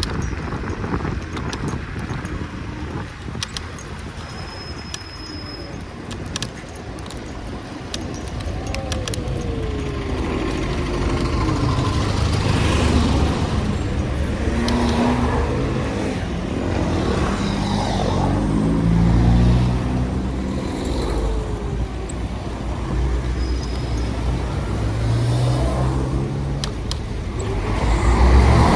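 Rush-hour city street traffic: a steady rumble of car engines idling and pulling away, with pitches rising and falling as vehicles accelerate. The traffic gets louder near the end as a vehicle passes close by.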